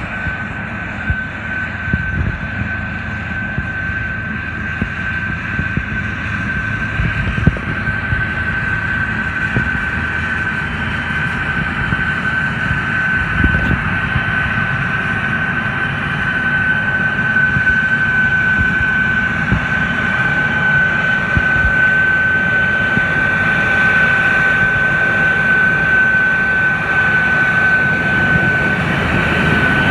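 New Holland TR99 combine running under load while harvesting soybeans, its flex head and Crary air-reel wind system working: a steady machine drone with a constant high-pitched whine over it, slowly growing louder.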